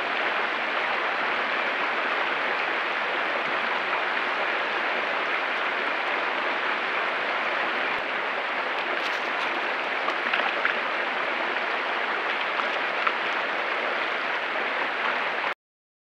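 Creek water running over rocks: a steady rushing hiss that cuts off suddenly near the end.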